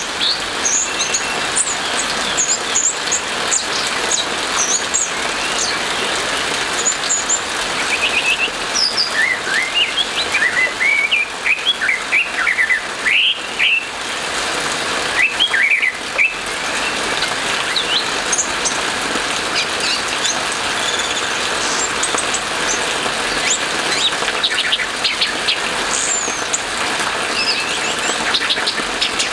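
Orange-headed thrush singing a fast, varied run of whistled phrases and high chirps, thickest in the middle, over a steady hiss of rain.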